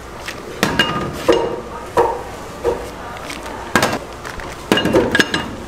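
Kitchen clatter: about nine sharp knocks and clinks of metal cookware and utensils, irregularly spaced, some ringing briefly.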